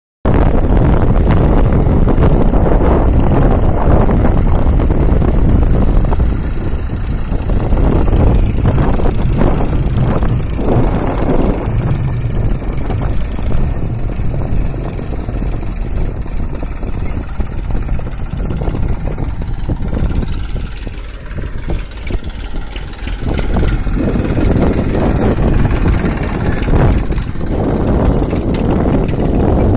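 Massey Ferguson 1035 tractor's three-cylinder diesel engine running steadily under load while pulling a field leveller. It fades a little past the middle and grows louder again near the end as the tractor comes close.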